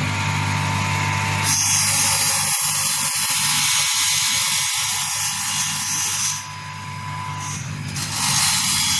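Automatic CNC wood-cutting saw: the saw motor hums steadily while the blade cuts through solid wood, a loud, high cutting noise from about a second and a half in to about six seconds, and a second, shorter cut near the end.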